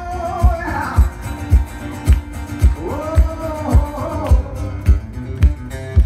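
Live acoustic performance: a man singing with a strummed steel-string acoustic guitar, over a steady low thump about twice a second. Sung phrases come near the start and again from about three seconds in.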